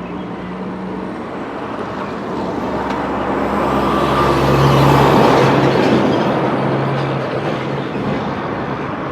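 A heavy motor vehicle driving past close by: engine hum and tyre noise swell to a peak about five seconds in, then fade as it moves away.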